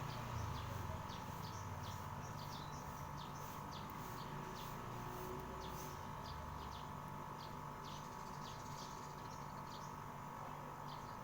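Small birds chirping, many short high calls, over a steady background hum.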